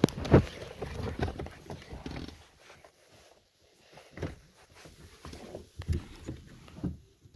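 Handling noise from a phone moving against clothing and a car seat: irregular rustling and knocks, the loudest knock about a third of a second in.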